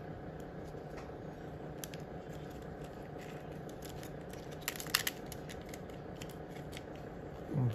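Faint handling sounds from hands tying line to fasten an orchid to its mount: small scattered clicks and rustles, with a brief cluster of sharper clicks about five seconds in.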